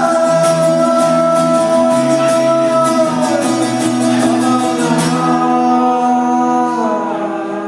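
A man singing live with a strummed acoustic guitar, holding a long sung note. The strumming stops about five seconds in and the final chord rings out under the voice, fading as the song ends.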